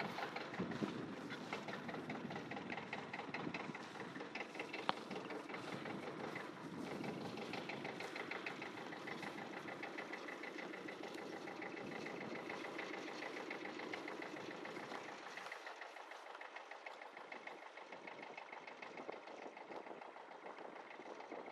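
An engine running steadily with a fast, even pulsing, with one sharp click about five seconds in; its deepest rumble fades from about fifteen seconds in.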